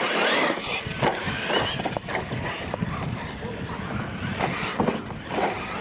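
Losi LMT radio-controlled monster trucks racing on dirt: their electric motors whine, rising and falling in pitch as they throttle, over the noise of tyres churning dirt. There are a few sharp knocks as the trucks land off jumps.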